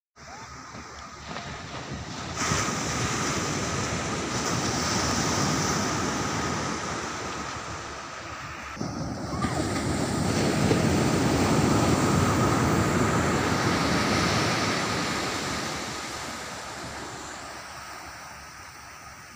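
Sea surf breaking on a sandy beach, swelling twice and easing off near the end, with wind rumbling on the microphone.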